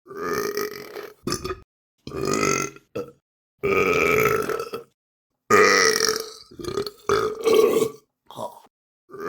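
A string of about seven loud human burps, some short and several drawn out to around a second, each cut off by a brief silence.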